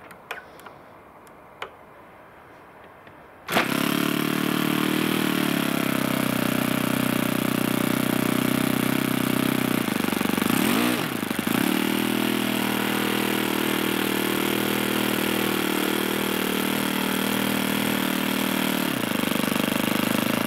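OS FS-26 small single-cylinder four-stroke glow engine being started: a few light clicks, then it catches suddenly about three and a half seconds in and runs steadily. Its pitch dips and recovers briefly about halfway through.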